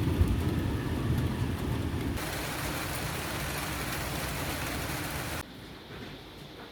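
Rain falling, layered as a sound effect: a low rumble under the rain for the first two seconds or so, then a brighter, even rain hiss that drops abruptly to a quieter level about five seconds in.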